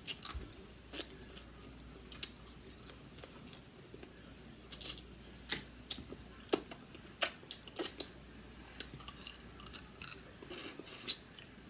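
Close-miked eating of a seafood boil: irregular short, sharp clicks and crackles of shell and mouth sounds, about one or two a second.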